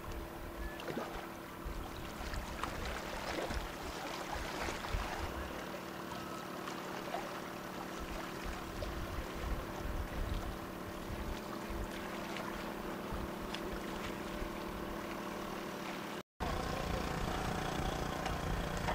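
Small outboard motor running steadily at low speed as the boat motors in, with wind buffeting the microphone.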